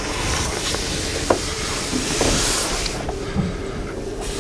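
Steady hissing background noise with a faint low hum, broken by a few light knocks, the sharpest about a second in.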